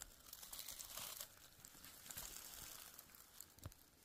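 Faint crinkling of dry beech leaf litter as a hand digs out and lifts a porcino mushroom, with a few small crackles.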